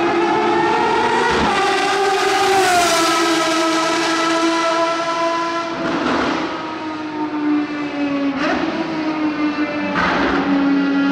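Ferrari FXX's 6.3-litre V12 running hard at high revs, a loud, steady high-pitched note with three brief cracks about six, eight and a half and ten seconds in.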